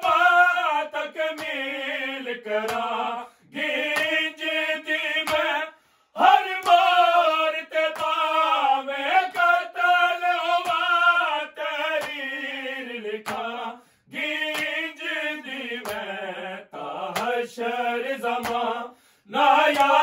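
Men's voices chanting a noha, a Shia lament, with no instruments. The sung phrases last two to three seconds each and are broken by short pauses.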